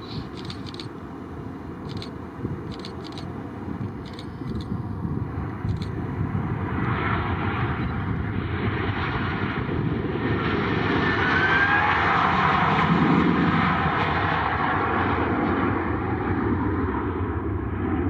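Bell CH-146 Griffon helicopter's turbine and rotor noise, a rushing drone that grows louder, is loudest about two-thirds of the way through, then eases slightly. A few short clicks sound in the first six seconds.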